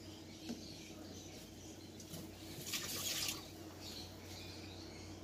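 Pot of pork bone broth bubbling at a boil while a metal ladle skims the scum off its surface, with a brief splash of liquid from the ladle about three seconds in. A steady low hum runs underneath.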